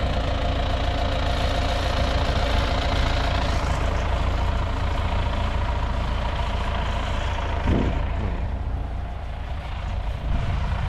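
Farm tractor's diesel engine running steadily, with a thin whine over it that fades out after about four seconds.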